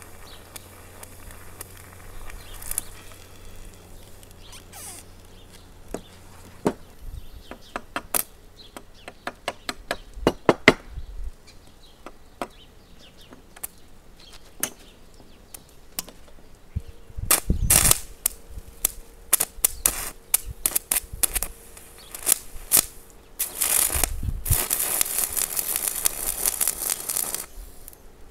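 Stick-welding arc fed by car batteries wired in series at 36 volts, sputtering in short crackling bursts as the rod is struck against a steel tube and keeps breaking off. Near the end the arc holds for about three seconds with a steady crackle.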